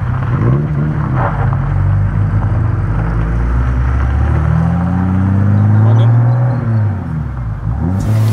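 Classic Porsche 911 driving past with its engine note rising as it accelerates, then falling away. A short burst of noise comes right at the end.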